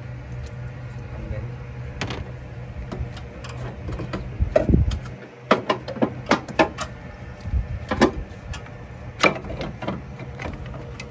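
Sharp clicks and clanks of hand tools and metal parts as engine mount hardware is unscrewed and worked loose, a quick run of them in the second half, over a steady low hum.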